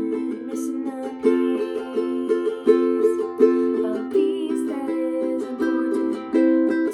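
Strummed chords on an acoustic string instrument in a steady rhythm, several strums a second.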